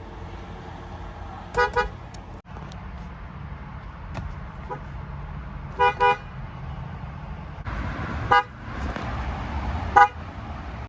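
Car horns tooted in short beeps: a quick double toot, another double toot about four seconds later, then two single toots about a second and a half apart, over steady background noise.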